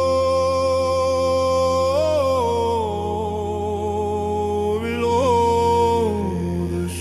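Slow chant intro: a voice holding long wordless notes that shift pitch a couple of times, over a steady low drone.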